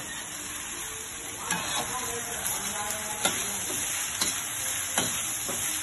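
Fried rice (nasi goreng) sizzling in a wok over a gas flame while a spatula stirs and turns it, striking the wok with several sharp clacks at uneven intervals over the steady frying hiss.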